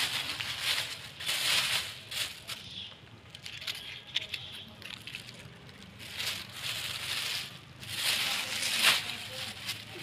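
Thin clear plastic bag rustling and crinkling in irregular bursts as scraps of plastic litter are handled and dropped into it, loudest near the start, about two-thirds of the way in, and again a little before the end.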